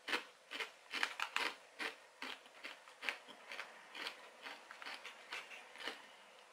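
A person chewing a mouthful of Doritos tortilla chips: a run of crisp, irregular crunches that grow fainter and sparser towards the end.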